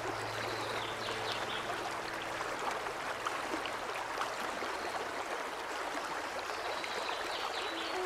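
Shallow rocky mountain stream flowing over stones in riffles: a steady, even rush of water.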